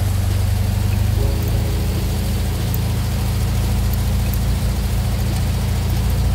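Truck engine running steadily at low revs, a constant low hum heard close to the vehicle.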